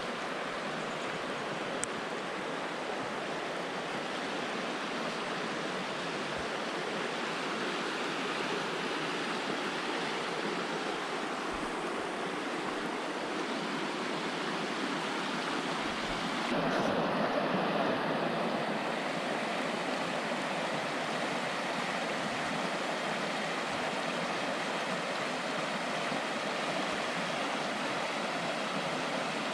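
Cimarron River rushing over its rocky bed in fast white-water rapids: a steady, even rush of water that gets a little louder just past halfway.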